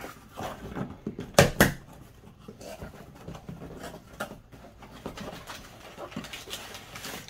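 Cardboard shipping box being opened by hand: packing tape slit and pulled, flaps folded back and cardboard rustling and scraping, with one loud scrape about a second and a half in.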